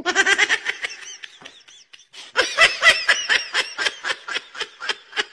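A person laughing hard in quick repeated bursts, about four or five a second. The laughter dies down about a second in and breaks out again, louder, about two and a half seconds in.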